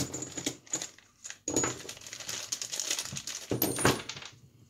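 Plastic packaging bag crinkling as it is opened, then small metal bottom bracket parts (sealed bearings, adapters and spacers) clicking and clattering as they are tipped out and set down on a wooden board, with a louder clatter and a brief metallic ring near the end.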